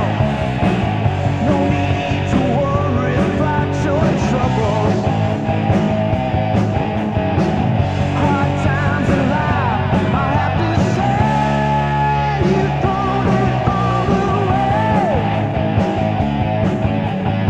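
Hard rock band recording from a 1987 demo: electric guitars, bass and drums playing, with melody notes that bend and slide in pitch.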